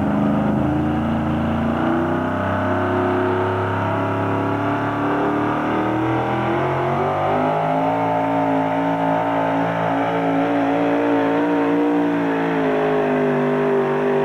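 Engine of a super modified 4x4 Ford pulling truck at full throttle dragging the weight-transfer sled, its pitch climbing over the first several seconds and then holding high and steady as the truck pulls down the track.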